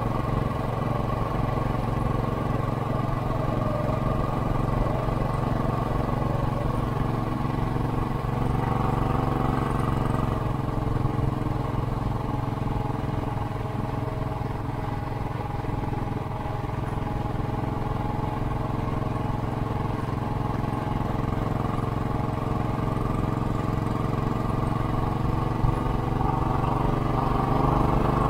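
Royal Enfield Classic 500's single-cylinder engine pulling steadily at cruising speed through a Hitchcock's aftermarket exhaust, heard from the rider's seat. It eases off a little midway and opens up again near the end.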